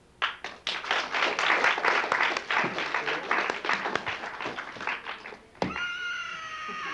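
Audience applauding, with dense irregular claps. Near the end the clapping stops, and a sharp knock is followed by a high tone with overtones that sags slightly in pitch and lasts about two seconds.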